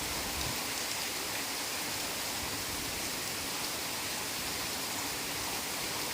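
Heavy rain falling steadily on tropical forest foliage: a steady, even hiss with no single sound standing out.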